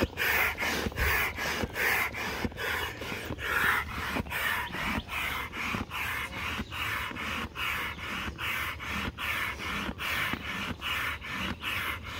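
Large hand air pump being worked steadily, a rush of air with each stroke at about two a second, inflating the middle chamber of an inflatable kayak.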